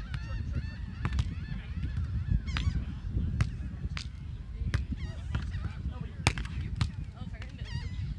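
A beach volleyball rally: a string of sharp slaps as players hit the ball with their hands and forearms, with wind on the microphone. Wavering high calls come in between the hits.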